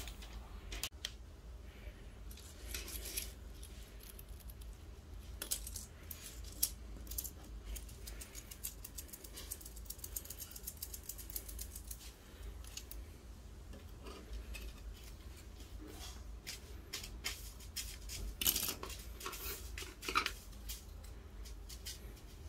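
Irregular light clicks, taps and rustles of small objects being handled, in two busier stretches near the middle and near the end, over a low steady hum.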